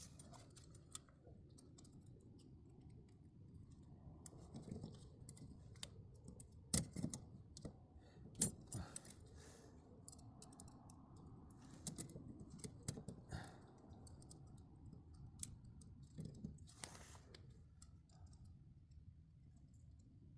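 Metal tools and parts being handled and set down: scattered clicks and clinks, with two sharper knocks a little before the middle, over a faint low hum.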